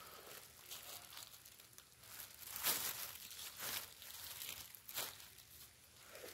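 Dry bamboo leaf litter crunching and rustling underfoot, in irregular crackles that are loudest a little under halfway through.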